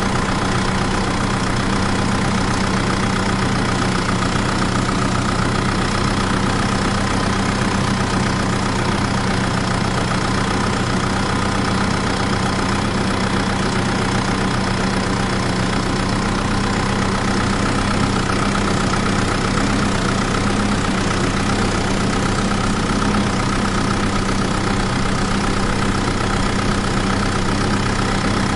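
Engine idling, an even drone that does not change in speed or level.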